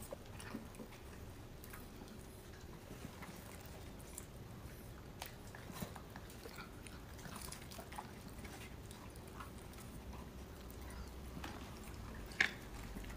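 Faint chewing and licking of poodles eating canned wet dog food off a plastic spoon, with scattered small clicks and one sharper click near the end.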